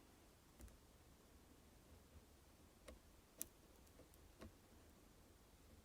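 Faint, scattered ticks of a lock pick working the sliders of an EVVA 3KS high-security lock under tension: about five soft clicks, the sharpest about three and a half seconds in.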